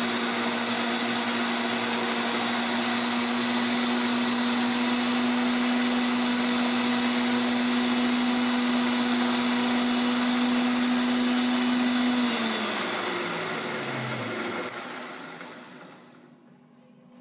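Tool post grinder running, its motor whining steadily over the hiss of the wheel grinding a hardened steel arbor. About twelve seconds in it is switched off, and the pitch falls as the wheel spins down and fades.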